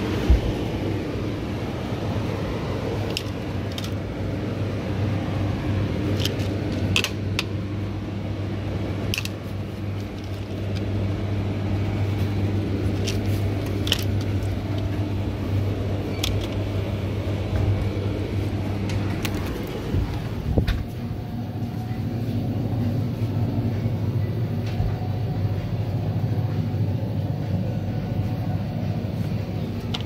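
Steady electrical hum of a refrigerated drinks cooler's fan and compressor, with a few short light clicks scattered through it.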